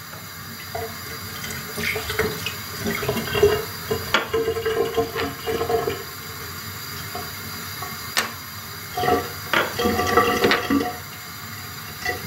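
Tap water running from a kitchen faucet into a stainless-steel sink, with light clinks of small glassware and a dropper bottle being handled.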